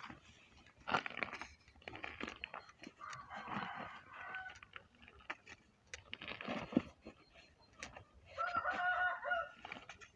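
A rooster crowing, clearest near the end, over handling noises from foam egg trays and a cardboard box being moved about.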